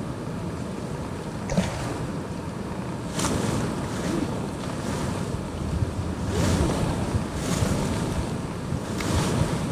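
Wind buffeting the microphone over the wash of waves, rising in several louder surges.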